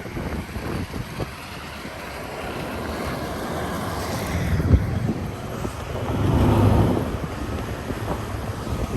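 Truck driving in four-wheel drive over beach sand: engine running under the rumble of tyres and wind buffeting the microphone. There is one sharp knock about halfway through, and the engine noise swells for a second or so near the two-thirds mark.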